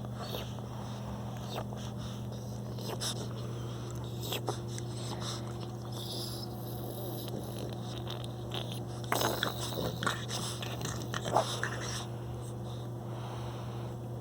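A French bulldog puppy moving about, mouthing and scuffling, with small clicks and a cluster of louder scuffs and knocks from about nine to eleven seconds in. A steady low hum runs underneath, likely the heater.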